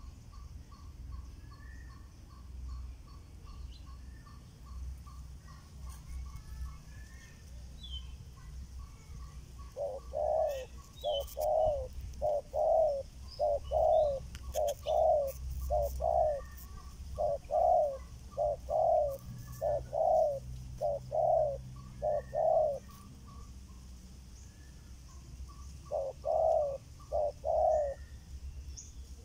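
Spotted doves cooing: a run of repeated low coos, each a short two-note phrase, starting about ten seconds in and going on for some twelve seconds, then a few more near the end.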